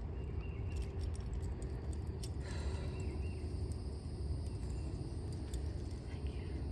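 Light metallic clinking of a horse's bridle, bit and buckles being handled as the bridle comes off, over a steady low rumble.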